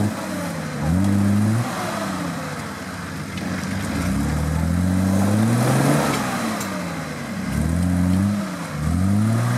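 An off-road 4x4's engine is worked under load through a deep muddy rut. It revs up and drops back in repeated bursts, rising about four times.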